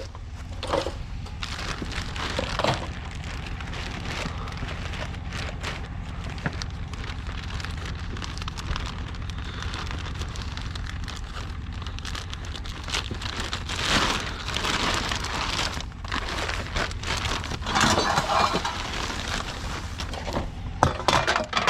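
Continuous rustling and crackling from loose junk being handled and rummaged through, with louder bursts about two-thirds of the way in and again near the end, over a steady low hum.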